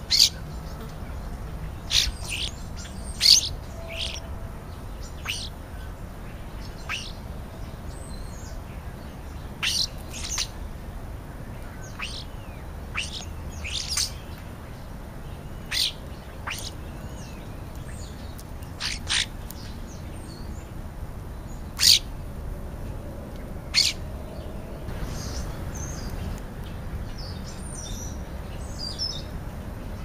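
European starlings giving short, sharp, high calls, one or two at a time and scattered throughout, the loudest just at the start, about three seconds in and about twenty-two seconds in, with fainter twittering near the end.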